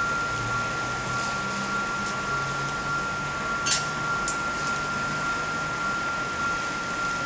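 Steady hiss of rain falling during a thunderstorm, over a faint steady high whine. A sharp click comes about halfway through, with a fainter one just after.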